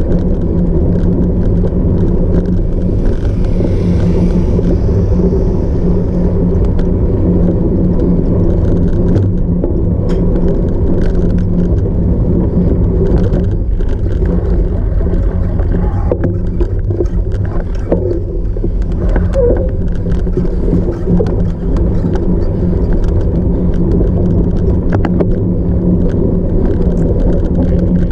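Continuous low rumble of riding noise from a cyclocross bike on rough off-road ground, heavy on the microphone, with scattered clicks and knocks.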